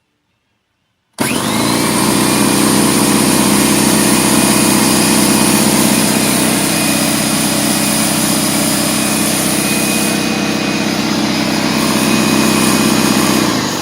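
DeWalt 4.5-gallon portable electric air compressor switched on: its 1.8 horsepower motor and pump start suddenly about a second in with a brief rising whine, then run loud and steady. It starts winding down near the end. The unit, bought as a no-start, starts and sounds like it is working good.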